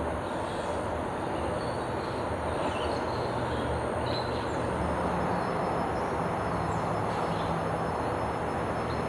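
Steady outdoor din of distant vehicle traffic, with a low engine hum that strengthens about halfway through and a few short bird chirps.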